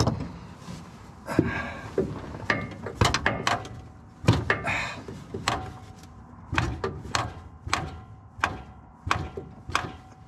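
Tapping and knocking on parts in the engine bay of a 1973 Ford F-350 before an attempt to crank its 390 V8: over a dozen sharp, irregularly spaced taps.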